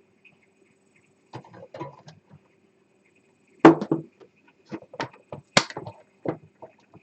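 Irregular clicks and knocks of hands working on a small 3D printer's parts, trying to free a stuck filament tube. A sharp knock comes about three and a half seconds in, and a quick run of clicks follows a second or two later.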